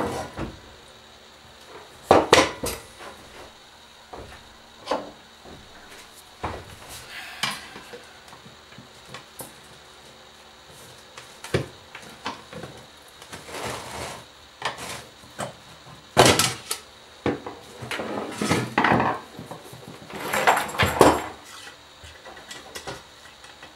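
Irregular clicks, knocks and rattling clatter of tools and the parts of a TIG welder foot pedal being handled as the pedal is taken apart, with a few louder clanks among them.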